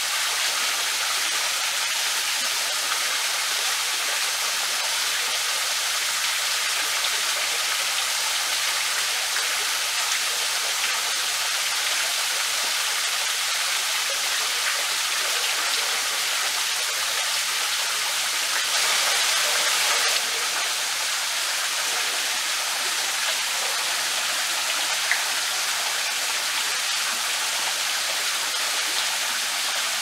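Small waterfall running steadily, falling water splashing with an even hiss, a little louder for a moment about two-thirds of the way through.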